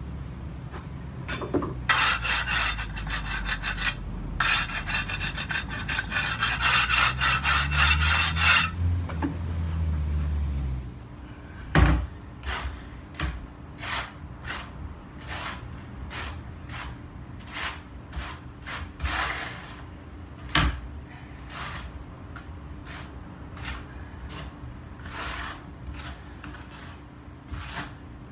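Wet tile saw cutting tile: two passes of a loud grinding hiss over the motor's low hum, which runs on a couple of seconds after the cut and then stops. After that, a long run of short scraping strokes, about one to two a second, as tiles are worked on the floor.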